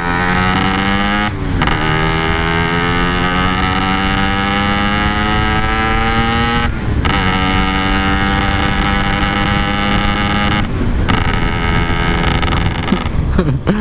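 Yamaha RX-King 135cc two-stroke single-cylinder engine under way, its note climbing slowly as the bike gathers speed. The note breaks off briefly three times, at each break dropping and building again: the rider shifting gears.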